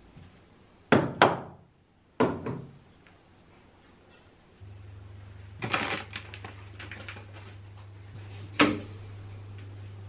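Storage containers and baskets knocking as they are set down and handled: two sharp knocks close together about a second in, another just after two seconds, a short clatter of small clicks around six seconds, and a single knock near the end.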